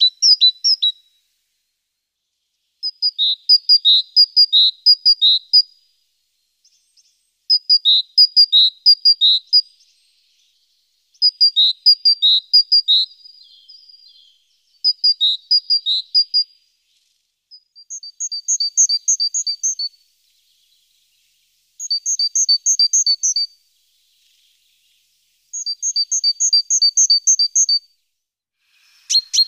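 A songbird singing: about seven short phrases of quick, high, repeated two-note figures, each lasting about two seconds, with pauses of a second or two between them. The figures shift to a higher, evenly paired pattern partway through.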